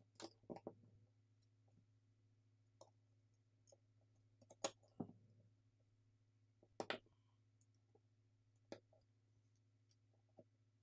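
Near silence broken by faint, scattered clicks and taps of small parts being handled as the Google Pixel 10's internals are fitted back into the frame by hand. The two loudest clicks come about halfway through and about two-thirds of the way through, over a faint steady hum.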